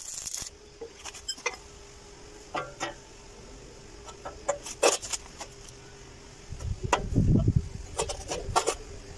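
A brief stick-welding arc crackle at the start, then scattered metal knocks and scrapes as a spirit level is set on a steel checker-plate stair tread and the tread is shifted against its pipe column. A low rumble comes about seven seconds in.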